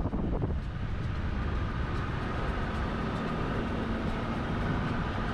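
A motor vehicle driving at a steady pace: engine and road noise running evenly, with a faint steady hum.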